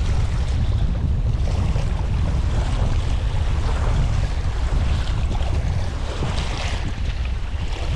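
Waves washing at the shore, with wind rumbling on the microphone underneath.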